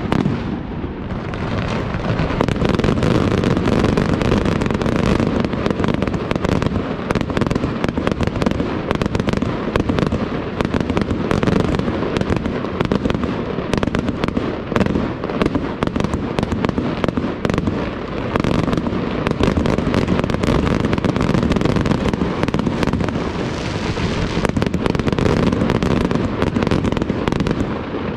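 Aerial fireworks display: shells bursting in a dense, unbroken barrage, many bangs close together.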